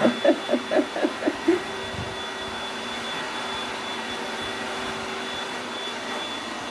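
A quick run of about eight short voiced yelps or giggles in the first second and a half, then a steady mechanical hum with a faint high whine, like a running household appliance or air conditioner.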